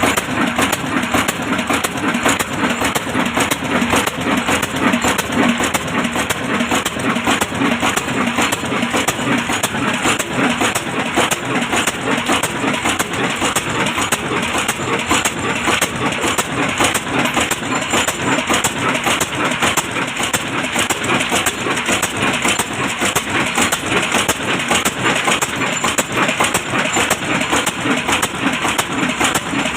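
Old diesel engine running steadily with a fast, even beat, driving a stone flour mill.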